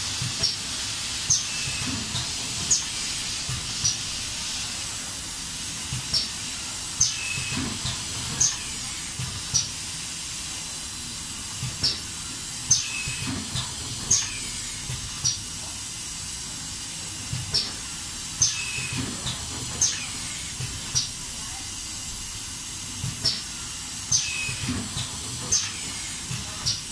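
Small-width masking tape packing machine (accordion type) running through its wrapping cycle: short sharp hisses and clicks from its pneumatic actuators, with low knocks. They come in groups of about five strokes, repeating roughly every six seconds, over a steady machine hum.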